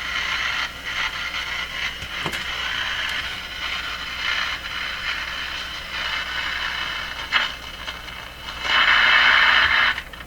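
Admiral Y846 five-tube AM radio hissing with static from its speaker as it is tuned between stations, with a click about two seconds in and a louder rush of static near the end.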